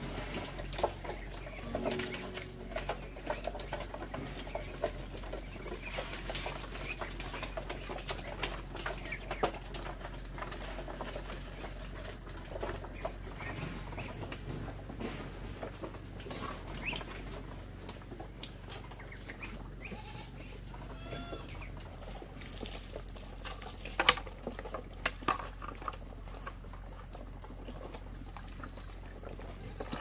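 A flock of ducks feeding from a bamboo trough: a busy patter of bills pecking and dabbling at the feed, with a few short high calls and a couple of louder knocks near the end.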